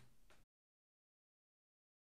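Near silence: a faint tail of room tone that cuts off to complete digital silence about half a second in.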